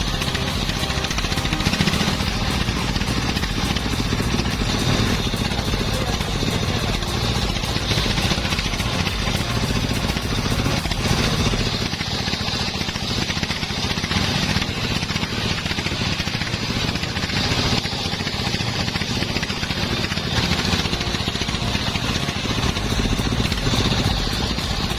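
Engine-driven wood-cutting machinery running steadily under load. The sound changes about eleven seconds in.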